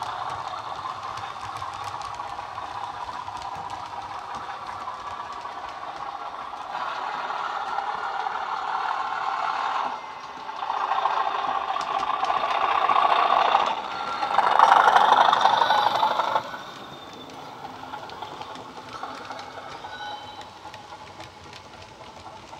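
A class 37 diesel's English Electric engine sound, played by a Bachmann model's DCC sound decoder through its small speaker, running under load as the model goes past. It grows louder in steps and is loudest for a couple of seconds just past the middle, then drops to a quieter steady run.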